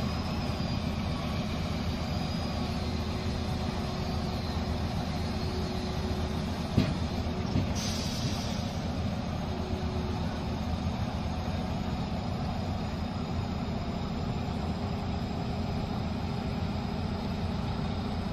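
Doosan excavator's diesel engine running steadily, with a sharp knock about seven seconds in and a short hiss just under a second later.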